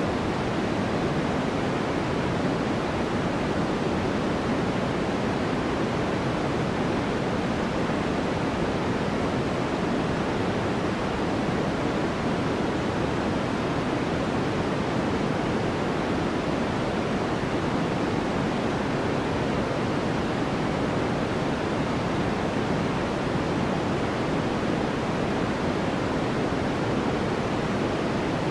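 Steady, unchanging synthetic white noise for sleep: an even hiss, fuller in the low-middle range than at the top, with no variation or events.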